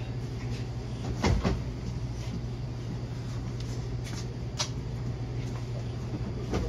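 Cardboard produce boxes being set down and shuffled into a pickup truck bed: scattered knocks and thuds, the loudest a little over a second in, over a steady low hum.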